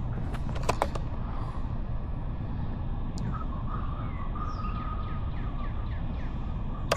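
A bird chirping a run of short, quickly falling notes, starting about three seconds in, over a steady low rumble of background noise; a few sharp clicks come just under a second in.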